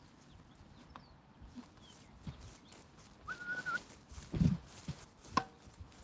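Faint dull thumps of footsteps and handling on a handheld phone while walking on grass, the loudest about four and a half seconds in. A short high whistle-like tone is held for about half a second a little past three seconds, and there is a sharp click near the end.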